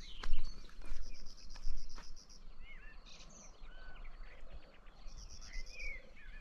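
Footsteps on the ground, several steps in the first two seconds, with birds chirping in short rising and falling calls over a rapid high trill that comes and goes.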